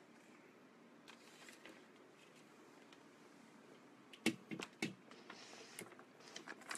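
Faint room tone, then from about four seconds in a handful of short sharp taps and knocks as fingers touch and handle the smartphone that is filming.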